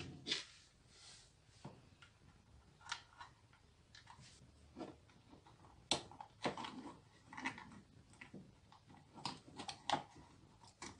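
Faint, scattered clicks and rustles from hands handling a plastic hot glue gun and fitting a thin bent wire into it, at irregular intervals with small clusters around the middle and near the end.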